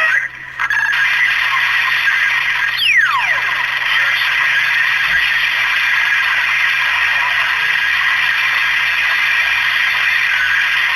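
CB radio receiver static: a steady hiss from the open channel, with a single whistle falling steeply in pitch about three seconds in.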